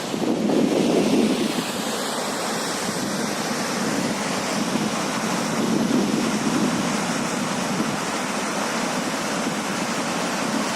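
Waterfall rushing: a steady wash of falling water that swells briefly about a second in.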